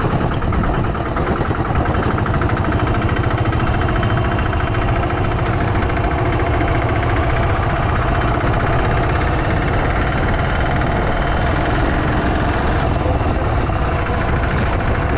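Auto-rickshaw engine running steadily under way, a fast, even engine beat with road noise, heard from inside the vehicle.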